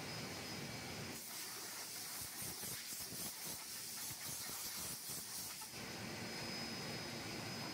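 A double-head hinge boring machine gives a loud, steady hiss that starts about a second in and stops about four and a half seconds later. Under it runs a low machine hum with a thin high whine.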